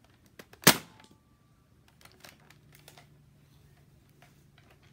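A Nerf Shockwave spring-powered drum blaster firing a dart: one sharp snap less than a second in, followed by faint plastic clicks and handling.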